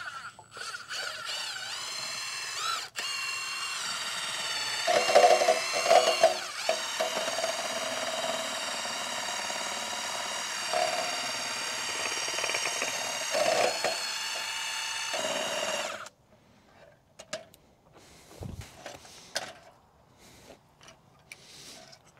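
Cordless drill spinning a paddle mixer in a pail of wood stain, its motor whine wavering in pitch as the trigger is eased and squeezed, with a brief dip about three seconds in. The drill stops after about sixteen seconds, and a few light knocks and clunks follow.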